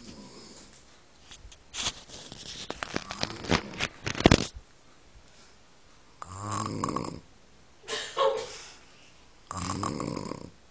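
An elderly woman snoring in her sleep. A stretch of rough crackling noise with one sharp loud peak comes first, then three separate snores in the second half, each about a second long.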